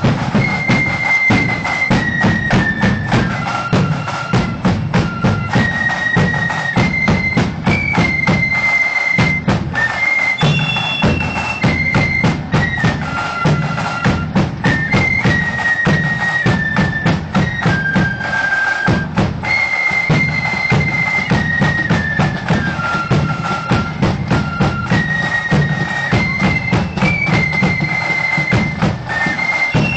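Marching flute band playing: a high, stepping flute melody over rapid snare drum rolls and a steady bass drum beat.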